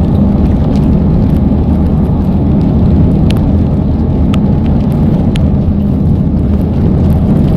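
Steady low rumble of road and engine noise inside a moving car's cabin, with a few faint ticks about a second apart midway.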